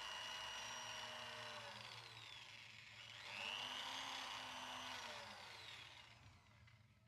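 Electric drill with a cloth buffing pad, polishing a motorcycle engine casing. Its whine drops in pitch a couple of seconds in and rises again about three seconds in, then winds down and stops near the end.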